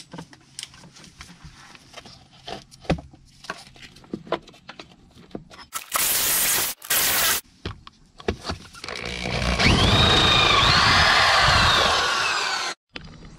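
Cordless drill driving a hole saw through the van floor: two short bursts, then a longer cut from about nine seconds in, with a whine that rises and falls, stopping abruptly near the end. Light clicks of handling come before it.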